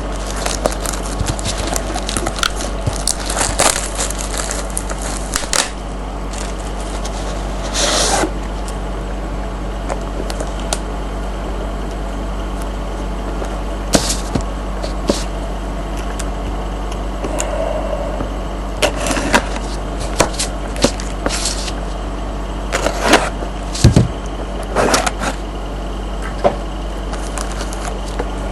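Packaging of a trading-card box being opened and handled: scattered crinkles, rustles and scrapes, some in quick clusters, over a steady low electrical hum.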